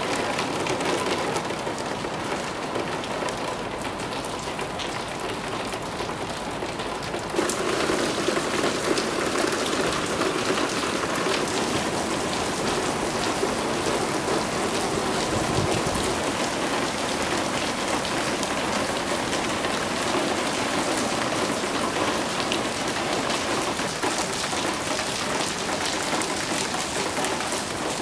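Steady rain falling on a wet parking lot and parked cars. It turns suddenly louder and fuller about seven seconds in.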